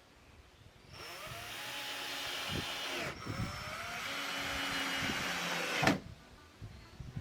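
A tool rasping against wood in two long strokes of about two seconds each, the second ending in a sharp knock.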